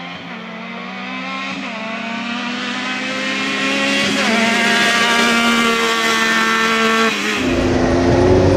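Two sport side-by-sides accelerating flat out side by side: a Yamaha YXZ's three-cylinder engine with an aftermarket Alba exhaust revs up through its gears, its pitch climbing and then dropping at three upshifts about two and a half seconds apart, alongside a Can-Am Maverick X3, growing louder as they come near. Near the end the sound turns to a closer, rougher engine rumble.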